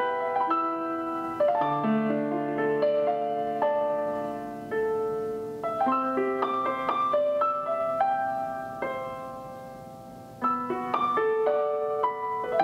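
Background piano music: a gentle melody of single notes and chords. It dies away to a lull about three-quarters through, then picks up again with fresh notes.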